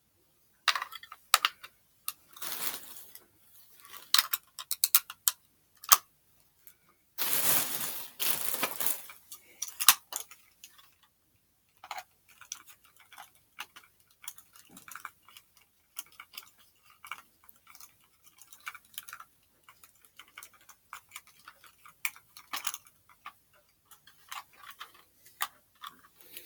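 Small sharp plastic clicks and taps from handling a toy harp while fitting batteries into it, with two longer stretches of scraping or rustling, one about two seconds in and a louder one about seven to nine seconds in.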